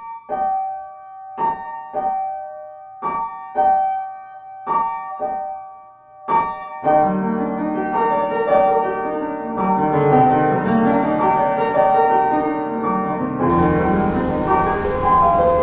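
Piano intro of a pop song: a few repeated chords struck with short pauses between them, then from about seven seconds in a continuous fuller piano part with low bass notes, the sound filling out brighter near the end.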